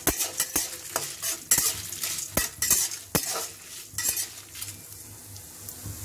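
Dry spices (coriander seeds, dals, peppercorns and dried red chillies) frying in a little oil in a kadai with a light sizzle, stirred with quick, irregular scraping strokes against the pan. The strokes thin out after about four and a half seconds.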